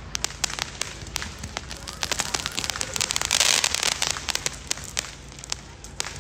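Diwali fireworks and firecrackers going off: a rapid, irregular scatter of sharp crackling pops, with a hissing rush about three seconds in.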